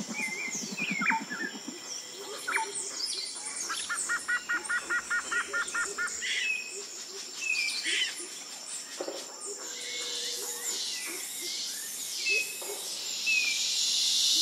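Tropical rainforest birds calling: scattered chirps and whistles, a low rapid pulsing call at the start, and a quick run of about a dozen even notes a few seconds in. A steady high insect drone runs underneath, and a high buzzing hiss of insects swells through the second half.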